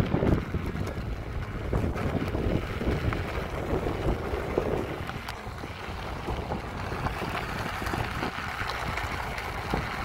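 Wind buffeting the microphone of a camera moving along a gravel track, with a steady rumble and fine crackling from wheels on the gravel.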